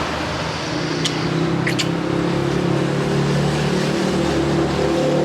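Motor vehicle engine running with a steady low hum, with a couple of brief high squeaks about a second in.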